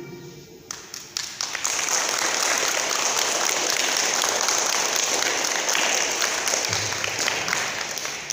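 Applause from a group of schoolchildren: a few scattered claps about a second in, filling out quickly into steady clapping that dies away right at the end.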